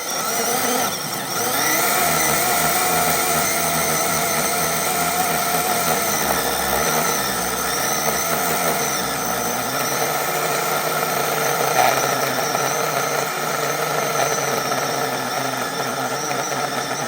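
Battery electric chainsaw running under load, its chain cutting into a tree stump while the bar is levered down on the bucking teeth. The motor sound dips briefly about a second in, then holds steady as it cuts.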